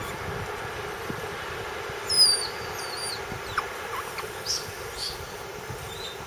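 High-pitched chirping calls. A loud bending chirp comes about two seconds in and another about three seconds in, with a few fainter short chirps later, all over a steady background hiss.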